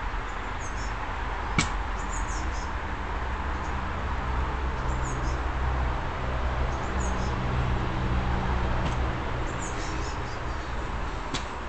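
Steady outdoor background noise with a low hum that grows louder in the middle, small birds chirping faintly now and then, and a sharp click about one and a half seconds in and another near the end.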